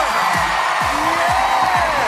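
TV studio audience cheering and whooping over upbeat celebration music with a steady beat.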